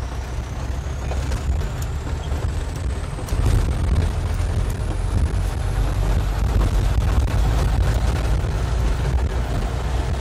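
Volkswagen truck heard from inside the cab, driving from broken asphalt onto a dirt road: a steady engine drone with low tyre and road rumble and small rattles, getting louder about three seconds in. A faint high whine rises slowly in pitch throughout.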